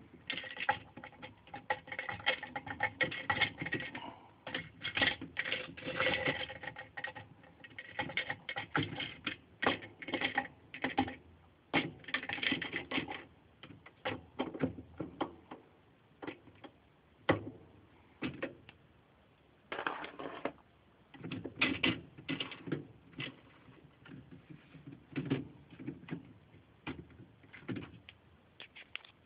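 Rapid, irregular metallic clicking and clattering of a socket extension and hand tools working on a washing machine agitator's parts, in short runs with brief pauses.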